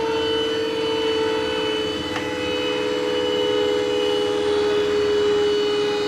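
A workshop power tool's electric motor running steadily with a constant whine, and a short click about two seconds in.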